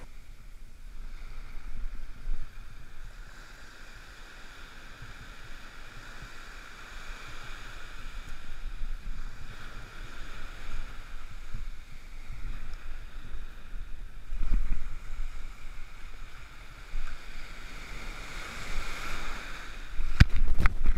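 Small ocean waves breaking and surf washing over the sand, with wind buffeting the microphone; a few sharp knocks close together near the end.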